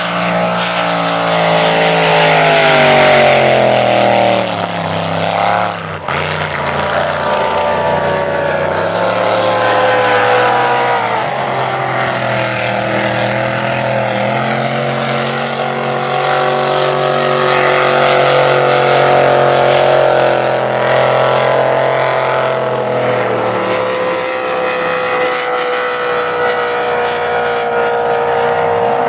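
Supercharged race-boat engine at full throttle, a steady high-revving drone whose pitch falls as the boat passes, a few seconds in and again around ten seconds in.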